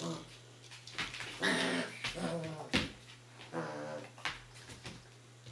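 A Czechoslovakian wolfdog puppy and an adult Saarloos wolfdog playing, one of them giving about four short, pitched whining calls. The loudest call comes around a second and a half in, and there is a sharp knock just before the three-second mark.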